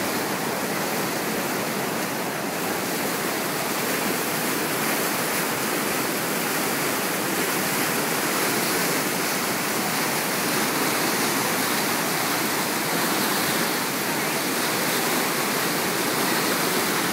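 Fast, churning brown floodwater rushing through a street and pouring past a fence: a steady, loud rush of water.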